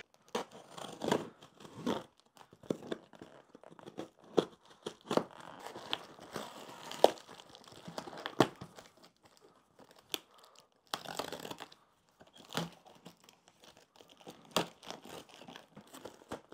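A cardboard box being cut and torn open: a knife slicing through packing tape, tape tearing and cardboard flaps scraping and crinkling, in irregular bursts with sharp clicks and a longer tearing stretch about eleven seconds in.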